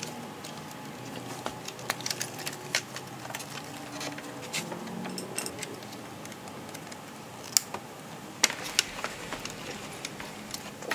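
Scattered small clicks and clinks of hands and tools working the carburetor, fuel and vacuum hoses and wiring loose inside a Honda Metropolitan scooter's engine compartment. A few sharper knocks come a little past halfway.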